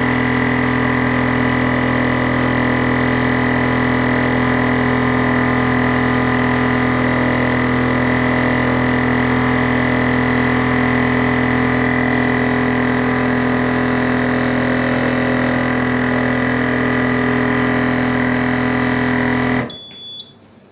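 Remi vortex mixer running, a steady electric motor hum with a constant pitch. It cuts off suddenly near the end, followed by a short high beep.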